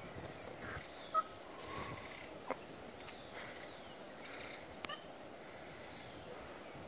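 Faint outdoor ambience with a few short, scattered chirps, the loudest about a second in, and two sharp clicks at about two and a half and five seconds in.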